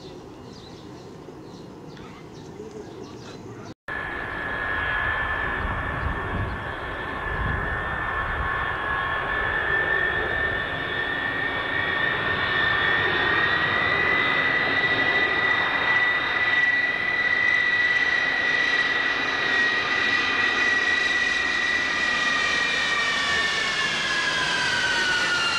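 Lockheed C-5 Galaxy on landing approach passing low overhead: after an abrupt start about four seconds in, its jet engines' high whine and low rumble build up, and the whine slides down in pitch near the end as the aircraft passes.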